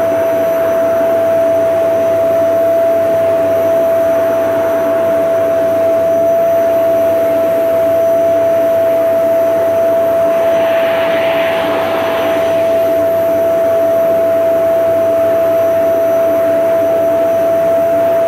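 Vacuum cleaner running steadily, its motor giving a constant whine over a rushing air noise, with a brief hissier swell about ten seconds in.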